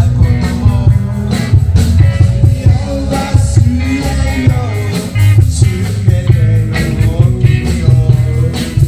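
Live rock band playing through PA speakers, with a singer over guitar, heavy bass and a steady drum beat.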